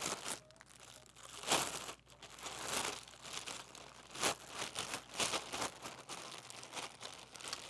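Thin plastic bag crinkling and rustling in irregular bursts as it is worked off a new trumpet, with a few louder crackles.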